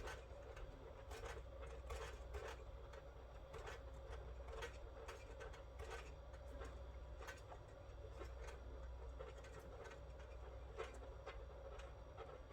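Faint, irregular small clicks and taps of hand tools working on the TV's metal chassis and circuit board, several a second, over a low steady hum.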